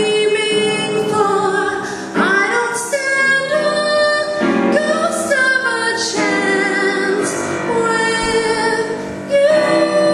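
A woman singing into a handheld microphone over musical accompaniment, holding long notes.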